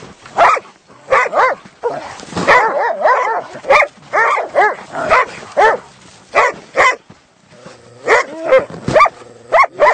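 Several dogs barking and yelping in quick short calls, two or three a second, with a longer wavering whine-like call near the end.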